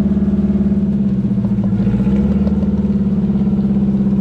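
Engine of an off-road 4x4 running steadily: an even, pulsing hum with no revving.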